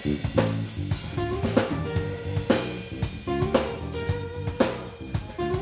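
Live band playing an instrumental funk groove: a drum kit keeps a steady beat of kick and snare hits under electric guitar and a repeating low bass line.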